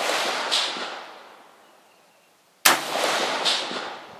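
A 5.56 mm AR-15 rifle with a 16-inch heavy barrel firing slow, aimed single shots. The echo of a shot fired just before dies away, and another sharp shot cracks about two and a half seconds in. Each shot trails a long echo with a distinct second echo under a second after it.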